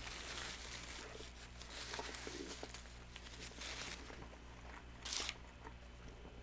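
A person chewing food close to the microphone, with faint crinkling and a short louder rustle about five seconds in.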